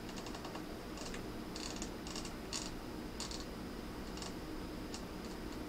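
Faint clicking of the Philips PM3208 oscilloscope's TIME/DIV rotary switch turned by hand through its detents: short clusters of quick ticks, about one cluster every half second, with brief pauses between.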